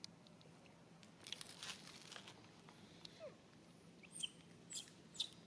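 Quiet background with a short rustle of dry leaf litter a little over a second in, then three brief high chirps from a small animal near the end.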